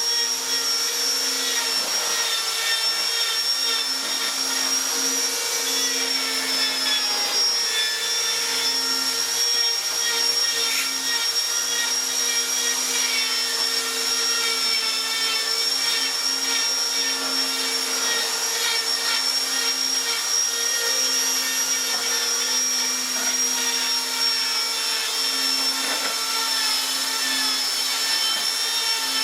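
An electric power tool running steadily with a high whine, its motor speed holding even throughout.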